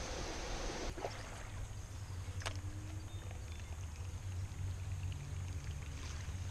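Water sloshing and trickling around a fishing kayak, over a steady low rumble of wind on the microphone, with one light click about two and a half seconds in.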